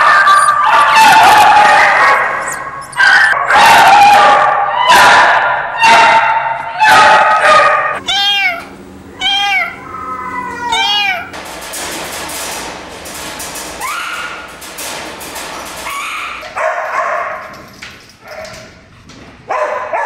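Caged dogs barking, yelping and howling, many at once, for the first eight seconds or so. Then comes a run of short cries that rise and fall in pitch, followed by quieter, scattered animal cries.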